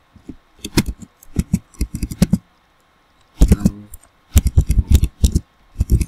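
Computer keyboard being typed on: irregular bursts of sharp key clicks, with a pause of about a second partway through.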